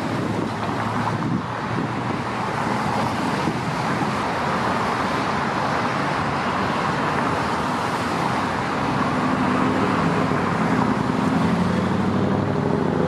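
Road traffic noise: a steady rush of passing cars. A vehicle engine's drone comes in and grows slightly louder over the last few seconds.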